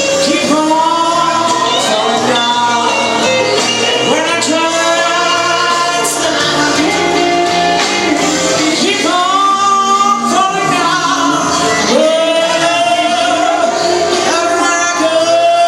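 A song: a singer holding long, wavering notes over instrumental backing.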